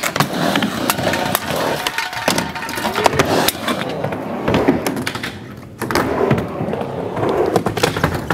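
Skateboards on a ramp: wheels rolling and sharp clacks of boards and trucks hitting, scattered irregularly, with people's voices in the background. It goes quieter for a couple of seconds past the middle.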